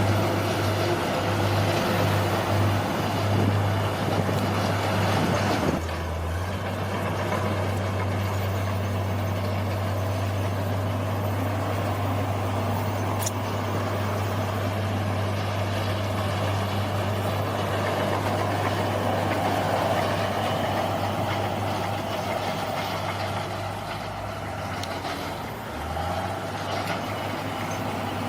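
Bulldozer's diesel engine running steadily under work. Its note shifts about six seconds in and again near the end.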